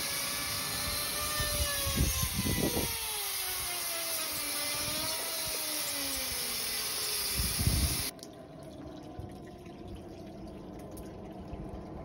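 Water gurgling and air hissing in a waterlogged dryer vent duct, where moisture is trapped behind a bird's nest blockage, with a few dull thumps. The sound drops off abruptly about two-thirds of the way in.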